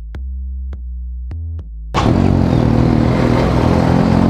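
A short electronic music sting of held low synth tones with four drum-machine clicks. About two seconds in it cuts off to a motorcycle running under way, with steady engine hum and wind noise.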